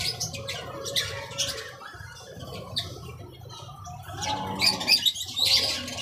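Lovebirds chattering, a steady run of short, sharp, high-pitched chirps and squawks that grows busier and louder near the end.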